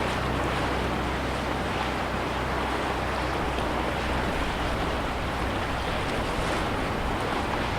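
Small lake waves washing and lapping against the shore in a steady, even wash.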